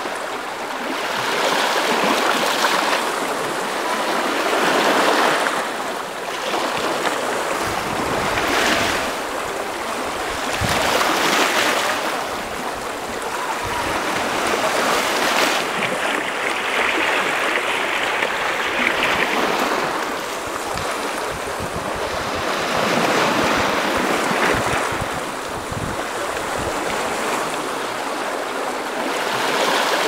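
Small sea waves washing onto the shore, the surf swelling and easing every few seconds.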